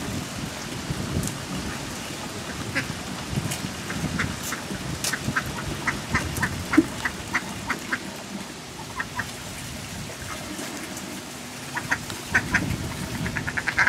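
Domestic duck quacking in a run of short quacks, about two or three a second, which pause and then pick up again faster near the end, over a low rushing noise in the first few seconds.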